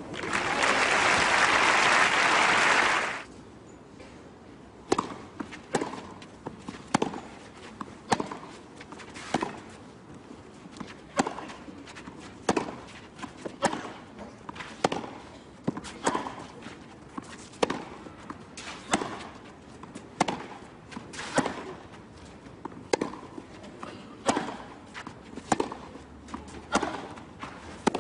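Crowd applause for about the first three seconds, cutting off. Then a tennis rally: sharp pops of racket strings hitting the ball, with bounces on the clay court, coming every second or so.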